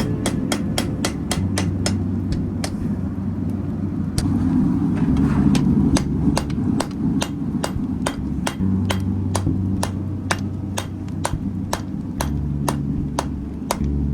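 Hand hammer striking hot steel on an anvil, drawing out a knife handle. Quick, even ringing blows come about three a second, with a short break about three seconds in, over a steady low rumble.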